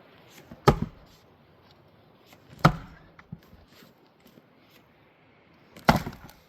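Three heavy blows of a splitting tool striking a spruce butt round, each a sharp crack with a short ring. The second comes about two seconds after the first, and the third about three seconds later.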